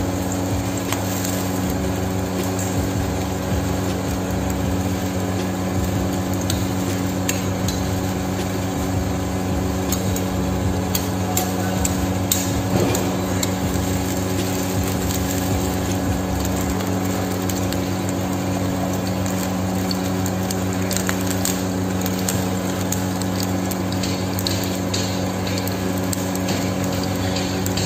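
Metal spoon clinking and scraping against a non-stick frying pan as lumps of something are spooned in, most of it a little past the middle and near the end. A steady low mechanical hum runs underneath throughout.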